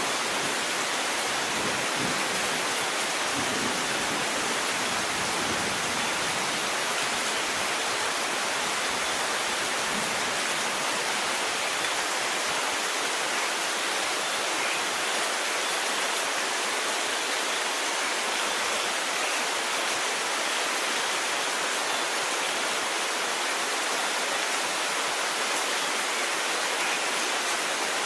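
Steady heavy rainfall, an even hiss with no distinct drops or claps of thunder standing out.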